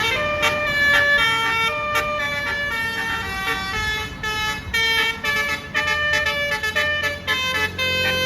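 Basuri 'telolet' multi-tone air horn on a tour bus playing a fast melody of short stepped notes. A low engine rumble grows louder near the end.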